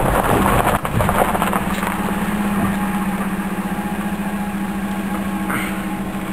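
Car engine running with a steady hum as the car drives up a gravel mountain track, with tyre and gravel noise underneath and a few knocks in the first second.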